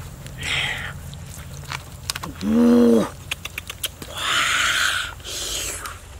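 Wet squelching and slapping of bare hands rubbing and squeezing a paste into a raw plucked duck's skin, coming in short bursts with small clicks between them. About two and a half seconds in, a single short call cuts in, rising then falling in pitch. It is the loudest sound here.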